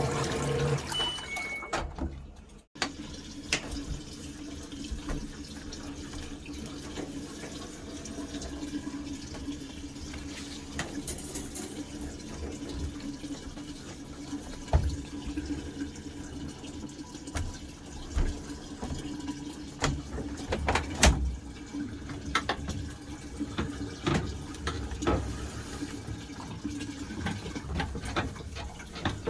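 Front-load washing machine at work with water rushing and sloshing inside, over a steady low hum. Scattered short knocks and clicks come through, and the sound breaks off briefly a few seconds in.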